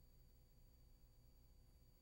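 Near silence: only a faint steady low hum with a thin high-pitched whine, with no sound events.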